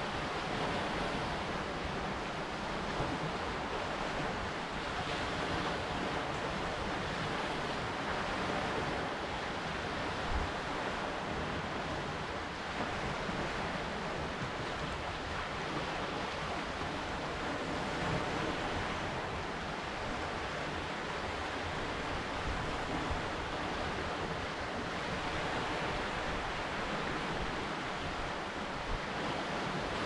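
Lake Superior waves washing on a rocky shore, heard as a steady, unbroken wash, with wind blowing and gusting on the microphone.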